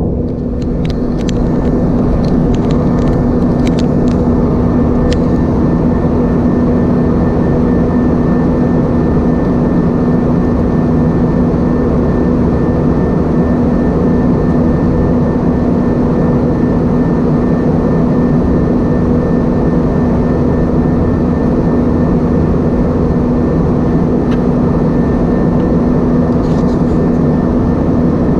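Steady cabin drone of an Airbus A320-232 in operation, heard from inside the cabin: engine and airflow noise with a constant hum. A few light clicks come in the first few seconds and again near the end.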